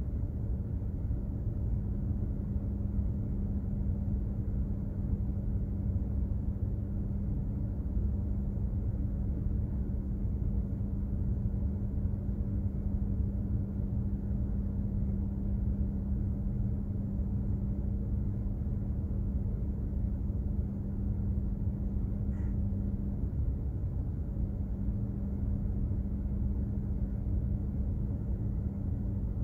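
Container ship's machinery running: a steady low rumble with a constant hum that drops out for about a second about three-quarters of the way through.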